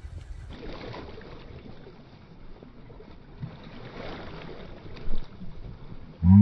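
Steady rush of flowing river water mixed with wind noise on the microphone.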